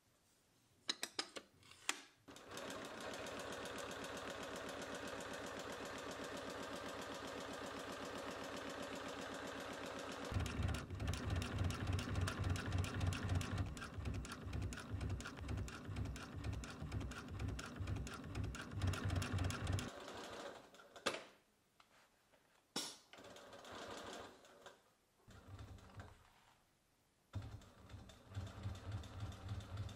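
Industrial sewing machine stitching synthetic leather. After a few clicks at the start it runs steadily, then runs louder for about ten seconds with a fast even needle beat, and near the end it sews in short starts and stops.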